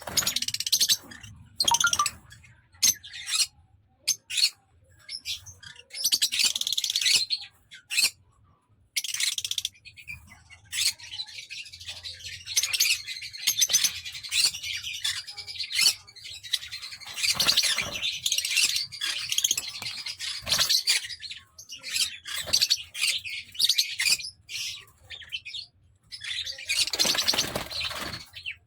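Pet parrots chirping and chattering in quick, high-pitched bursts with short pauses between them.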